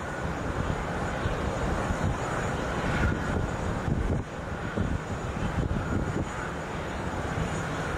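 Steady rumble and hum of distant jet aircraft engines across an airport apron, with gusty wind buffeting the microphone.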